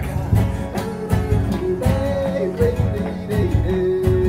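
Background music with a steady beat and a wavering melody line.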